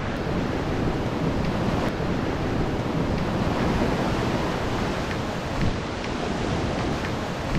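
Ocean surf breaking and washing up a sandy beach, a steady rush of water, with some wind on the microphone.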